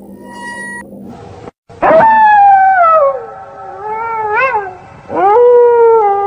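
Wolf howling: two long howls that each slide slowly down in pitch, the second starting about five seconds in. A brief faint high ringing tone comes before them.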